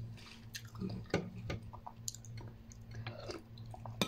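Close-up chewing of a mouthful of instant noodles, with scattered small clicks of a metal spoon against a ceramic bowl, over a steady low hum.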